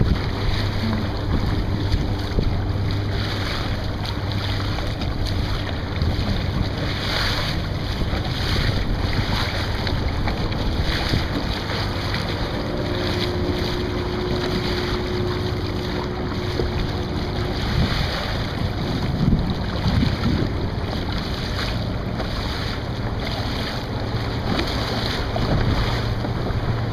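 Wind buffeting the microphone over a steady wash of sea water around a kayak, with soft splashes coming and going.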